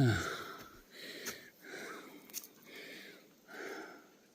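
A person breathing hard from the exertion of a steep uphill hike, about one heavy breath a second.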